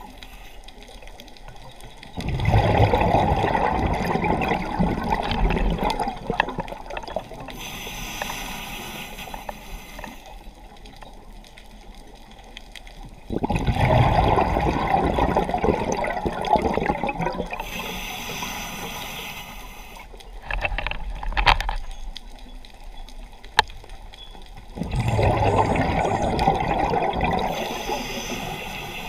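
Scuba diver breathing through a regulator underwater: three long rushes of exhaled bubbles, about eleven seconds apart, with a faint high hiss of inhalation between them. Two sharp clicks sound between the second and third exhalations.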